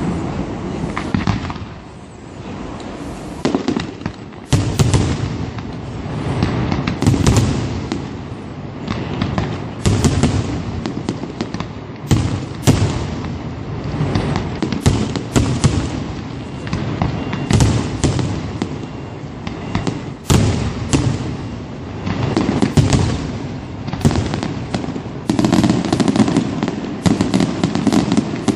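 Aerial firework shells bursting one after another, sharp bangs every second or two over a steady low rumble and crackle. The bangs grow denser in the last few seconds.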